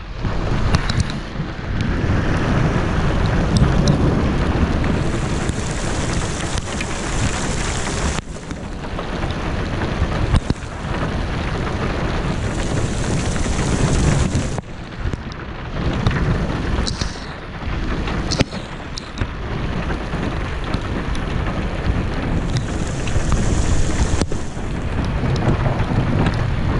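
Thunder rumbling on and off over steady heavy rain, with the low rumbles swelling several times. The sound breaks off sharply three times and picks up again.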